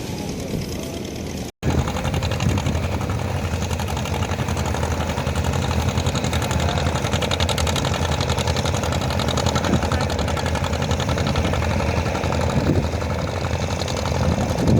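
Boat's diesel engine running with a fast, steady knocking beat. The sound drops out abruptly for an instant about a second and a half in, then returns louder.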